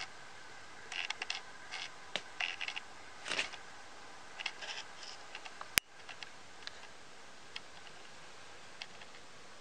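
Light handling noise: scattered small clicks, taps and scrapes of plastic being touched and moved, busiest in the first half, with one sharp click about six seconds in.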